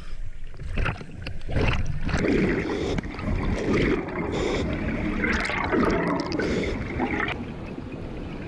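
Water sloshing around the mask and microphone at the surface, then underwater scuba breathing: exhaled bubbles from the regulator gurgling in a few long bursts, easing off near the end.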